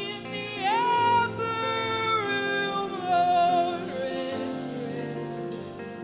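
Worship band playing a slow song, with a wordless sung line over sustained chords: a voice slides up into a long held note and steps down through held notes, then fades under the instruments.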